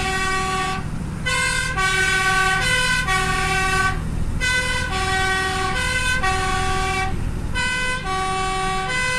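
Fire engine's two-tone siren alternating between a low and a high note, with a short break every few seconds, heard from inside the cab over the truck's engine running.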